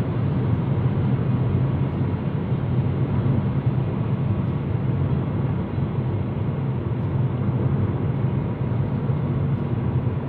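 Steady drone of a car driving at speed on a highway, heard from inside the cabin.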